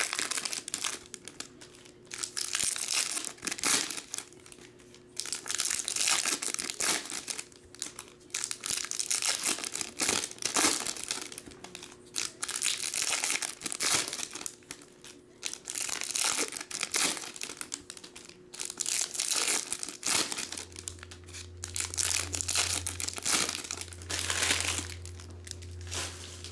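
Foil trading-card pack wrappers being torn open and crumpled by hand, in irregular crinkling bursts.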